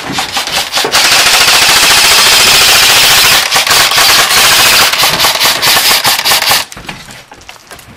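Airsoft rifle firing on full auto close by: a few single shots, then a long rapid rattling burst from about a second in, with a brief break past the middle, cutting off sharply near the end.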